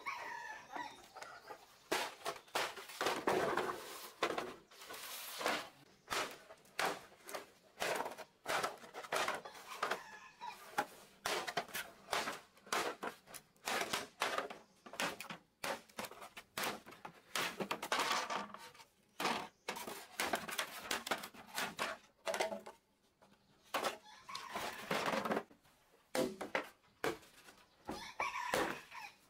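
Bamboo poles knocking and clattering against each other and the ground as they are handled and laid out. Chickens cluck, and a rooster crows now and then.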